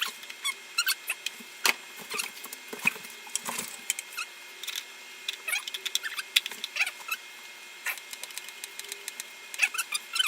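Packaging being handled and opened: scattered crinkling, scraping and sharp clicks of cardboard and plastic, coming in quick irregular bursts.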